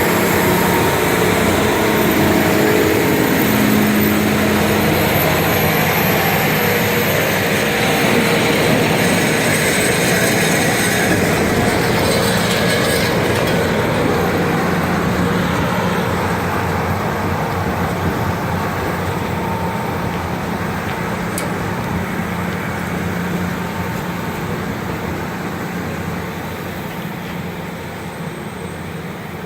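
Rail grinder train running along the track, a loud steady rumble and rushing noise with a low hum, gradually fading over the last several seconds as it moves away.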